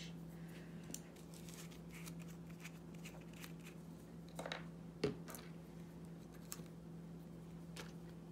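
Quiet handling of small miniature-kit pieces and a glue bottle on a cutting mat: faint taps, ticks and rustles, with one sharper knock about five seconds in. A steady low hum sits underneath.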